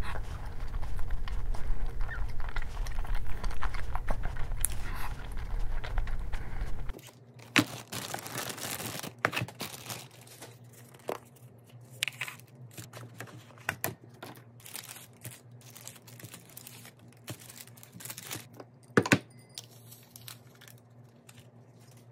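Scattered crinkling, tearing and clicking handling noises. A low rumble underlies the first seven seconds or so and cuts off abruptly, leaving isolated clicks and crinkles.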